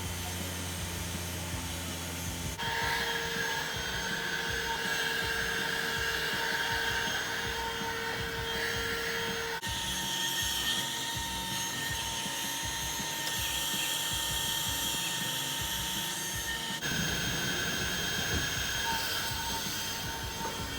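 Car vacuum cleaner running steadily, a motor whine with a hiss of suction air, its tone shifting abruptly three times.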